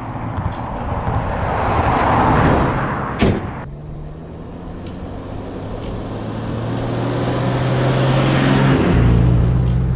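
A vehicle passing on the road, its rushing noise swelling and then cutting off abruptly about three and a half seconds in. Then a Toyota Land Cruiser Troopy's engine draws nearer on a dirt road, growing steadily louder, and its note shifts near the end.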